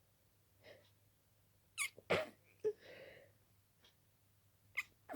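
A person sneezing in a rapid allergic sneezing fit. A sharp double-burst sneeze comes about two seconds in and is the loudest sound, followed by a soft breathy sound, then another quick sneeze near the end.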